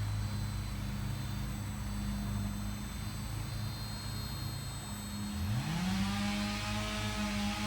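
Electric RC helicopter motor: a steady low hum, then a little past five seconds in a motor whine quickly rises in pitch and holds steady as the rotor spools up.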